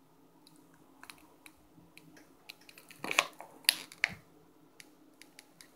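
Plastic deli-meat package crinkling and clicking as it is handled, with scattered small ticks and a few louder crackles between about three and four seconds in.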